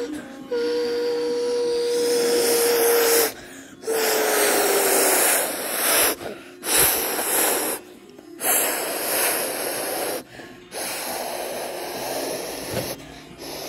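A person imitating a jet airliner with their voice while flying a toy plane: a held hum that then slides down in pitch, followed by long hissing whooshes broken every few seconds by short pauses for breath.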